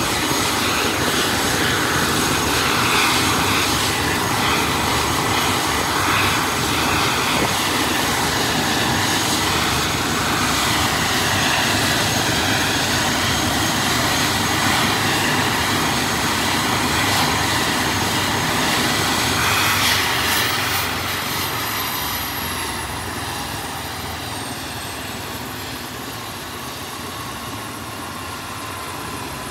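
Airbus H145 helicopter running on the pad, its twin turboshaft engines and turning rotor making a loud, steady whine and rush. About 20 seconds in the level drops and a falling whine sets in as the turbines wind down.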